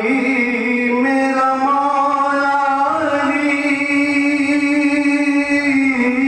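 A man singing one long drawn-out note into a microphone as part of a devotional chant. The pitch rises a little about three seconds in and falls back near the end.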